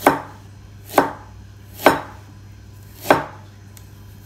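Kitchen knife chopping down onto a cutting board: four separate sharp chops, about one a second.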